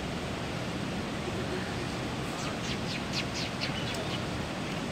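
Steady rush of running water, with a small bird giving a quick run of about seven short, high, falling chirps around the middle.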